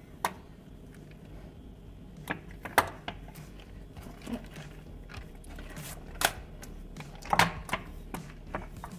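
Wooden tortilla press clacking and knocking as its board is closed and its lever handle pushed down on masa between plastic sheets: a string of separate sharp wooden knocks at irregular intervals.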